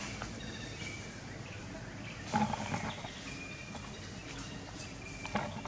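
Steady background noise with a few faint, short, high chirping animal calls, and a brief louder burst of sound about two and a half seconds in.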